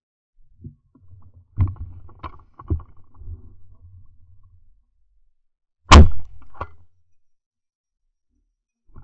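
Scattered rustling and knocks, then a single very loud shotgun shot about six seconds in, with a smaller crack just after.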